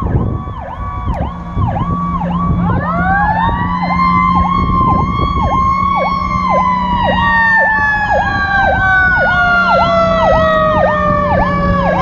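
Fire engine sirens: an electronic siren pulsing about twice a second, joined about three seconds in by a wailing siren that winds up, holds, then slowly winds down, typical of a Federal Q2B mechanical siren. A steady low drone runs underneath.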